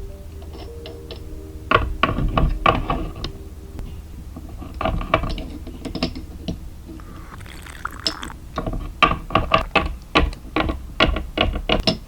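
A run of light, irregular clicks and taps, with a short hiss about seven seconds in.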